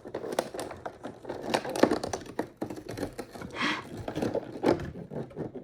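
A cardboard advent calendar door being opened and the small toy and packaging inside handled: an irregular run of small clicks, taps and crackles.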